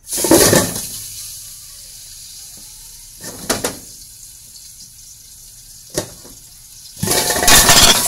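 Hot oil in a wok sizzling loudly as a live snakehead fish goes in, settling to a steady hiss. A metal lid clanks onto the wok about three and a half seconds in, there is a short knock near six seconds, and a second loud surge of sizzling and spattering comes about a second before the end.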